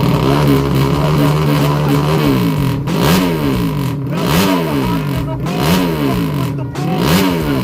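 200cc motorcycle with an aftermarket MP2 exhaust idling steadily, then revved in four quick throttle blips, the pitch rising and falling with each, about one every second and a half.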